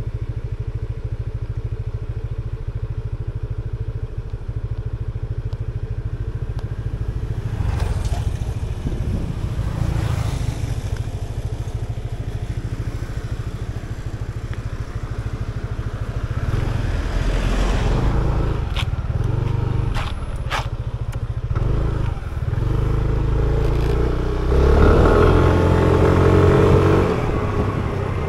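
Motor scooter engine running while riding, heard from the rider's seat, its note changing as the throttle opens and closes and loudest near the end as it speeds up.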